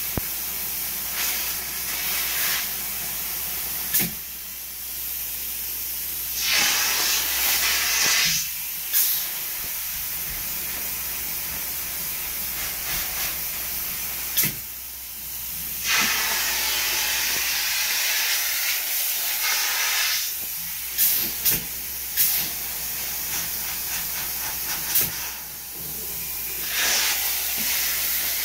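Spray foam injection gun hissing as polyurethane foam is pumped through holes into the cavities of a finished wall. The hiss grows louder in several longer spells, with a few sharp clicks between them.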